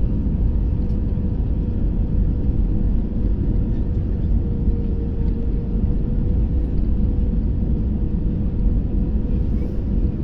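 Cabin noise inside an Airbus A319-112 during landing: a steady, loud rumble of its CFM56 engines and airflow, with a steady engine whine over it.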